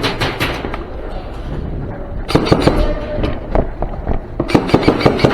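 Airsoft guns firing: a scatter of sharp pops that thicken into quick strings of shots from about two seconds in and again near the end.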